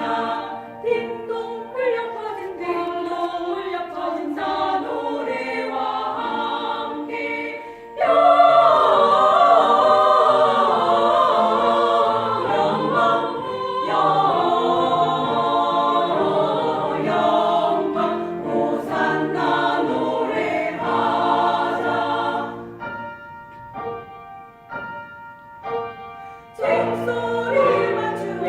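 Small church choir singing a sacred song in harmony. The voices come in fuller and louder about eight seconds in, thin out to a quieter passage a few seconds before the end, then swell again.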